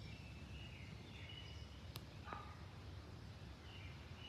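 Faint birdsong: short high phrases of song near the start and again near the end, over a steady low background noise, with one sharp click about two seconds in.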